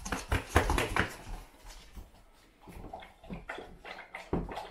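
Golden retriever lapping water from a steel bowl, quick wet laps about four or five a second in the second half. Before that, dogs' claws clicking and scuffling on a laminate floor.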